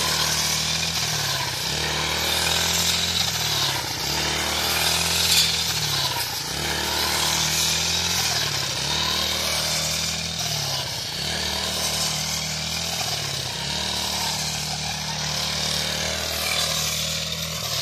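Petrol brush cutter running, used as a fodder cutter, its small engine working steadily. The engine note sags and picks back up about every two seconds as the blade is swung through the standing fodder crop.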